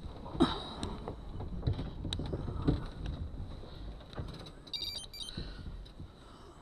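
Velomobile rolling slowly over a rough dirt and gravel shoulder: a low rumble with several knocks and rattles from the shell in the first few seconds. A brief burst of high chirps comes about five seconds in.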